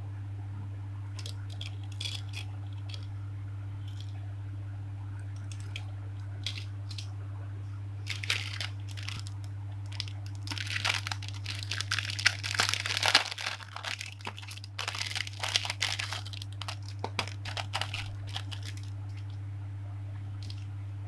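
Clear plastic packaging bag crinkling and crackling as hands handle it, open it and slide its contents out; a few scattered crackles at first, densest in the middle stretch. A steady low hum runs underneath.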